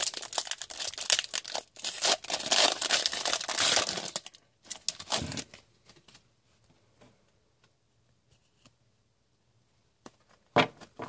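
A hockey card pack's wrapper being torn open and crinkled for about five seconds, then a few faint clicks.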